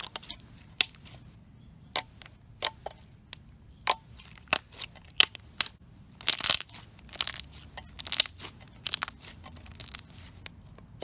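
Thick, creamy slime being pressed and folded between the hands, giving irregular sharp clicks and pops of trapped air, with a longer crackly run of them about six seconds in.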